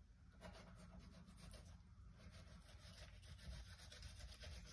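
Faint scraping of a fillet knife drawn along a perch fillet on a cutting board, separating the skin from the meat in a run of small quick strokes.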